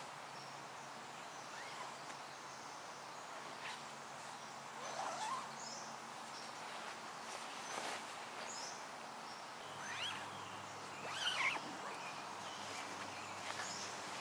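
Forest ambience: a soft steady hiss with scattered short bird calls and chirps, the clearest cluster about three-quarters of the way through, and a few faint rustles or small knocks.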